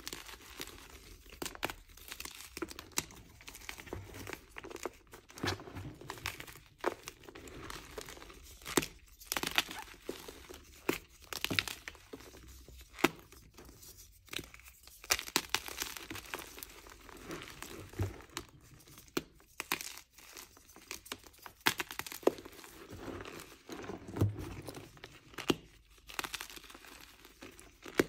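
Blocks of gym chalk crushed and crumbled by hand in a bed of chalk powder and cornstarch: irregular dry crunches and snaps, with soft squeaks as the cornstarch powder is squeezed.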